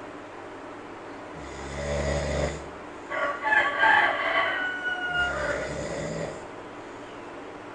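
Snoring in slow breaths, two snores in all. Between them, about three seconds in, comes a loud crowing call of about two seconds, made of several slightly falling tones like a rooster's crow. It is the loudest sound here.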